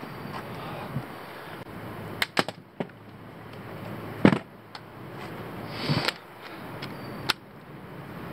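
Hand tools clicking and knocking against metal as they are handled at the outboard's transom mounting bolts: about six sharp, irregular clicks, the loudest a little past the middle, over faint steady background noise.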